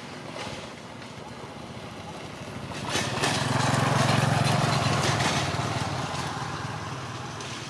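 A motor vehicle's engine passing by: the hum grows louder about three seconds in, peaks, then slowly fades.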